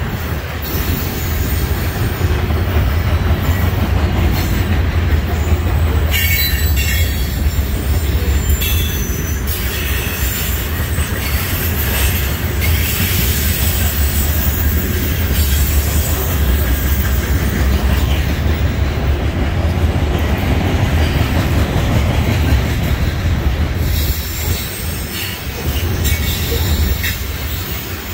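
Loaded covered hopper cars of a freight sand train rolling past close by: a steady heavy rumble of steel wheels on the rails, with high-pitched wheel noise coming and going several times.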